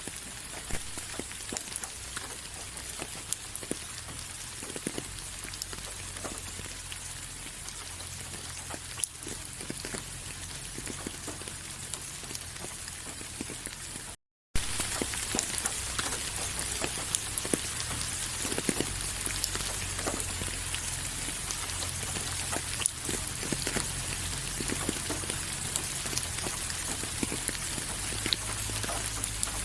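Steady rain falling, with many separate drops hitting a surface. The sound cuts out completely for a moment about halfway through, then comes back a little louder.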